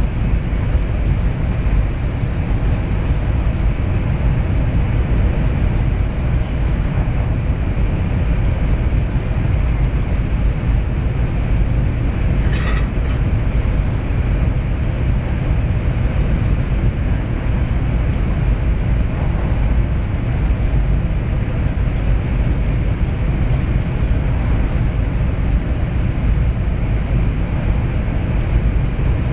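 Cabin noise inside a Taiwan High Speed Rail 700T train running at speed: a steady low rumble of wheels on track and air rushing past. A brief hiss cuts in about halfway through.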